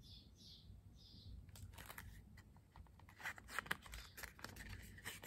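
Faint paper rustling and crinkling as a picture book's page is handled and turned: a run of small crackles and taps that gets busier over the last couple of seconds.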